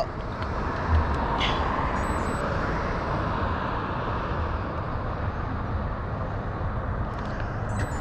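Steady road traffic noise from cars on a wide multi-lane street, with a brief low thump about a second in.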